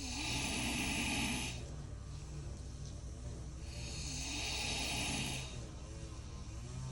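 A man snoring loudly: two long snores about four seconds apart, each with a hissing rasp, and quieter breathing between them.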